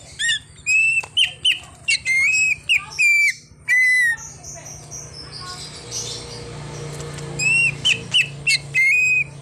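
Cucak ijo (leafbird) singing loud, clear whistled notes in quick runs, some sliding in pitch. A pause of about three seconds falls in the middle, then another run comes near the end.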